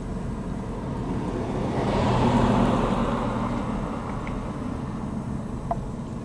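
Motor vehicle traffic: a steady low engine rumble that swells as a vehicle passes close about two seconds in, then fades back.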